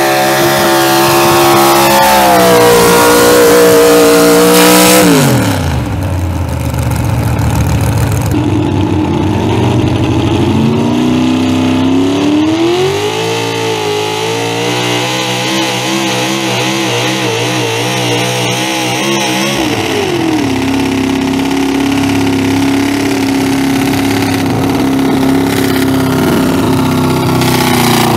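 Pulling truck's engine at high revs dragging a weight sled down the track. The revs drop sharply about five seconds in, climb again, then waver rapidly up and down for several seconds before settling to a steadier, lower note.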